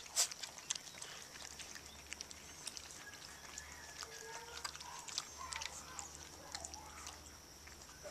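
Several Siberian husky puppies lapping milk from a shallow plastic dish: a rapid, irregular run of small wet clicks and slurps from many tongues at once.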